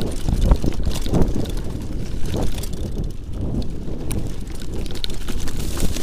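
Mountain bike riding down a dirt forest trail: wind noise on the microphone over the tyres rolling on the dirt, with frequent irregular rattles and knocks as the bike goes over bumps.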